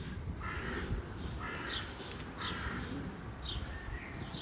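A crow cawing over and over, short harsh caws about once a second.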